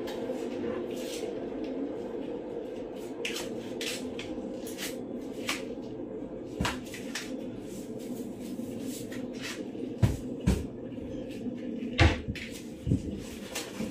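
Kitchen wall cupboard being opened and closed while things are taken out and handled: a few sharp knocks, the loudest about ten and twelve seconds in, over a steady low hum.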